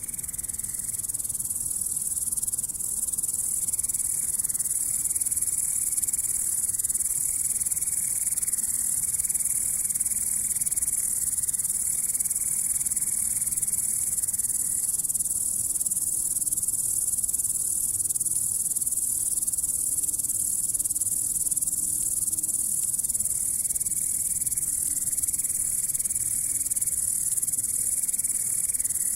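Grasshopper stridulating: a continuous, very high-pitched buzzing trill that goes on unbroken.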